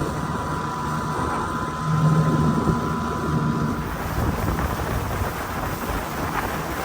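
Wind rushing over the microphone, with a faint steady motor hum underneath.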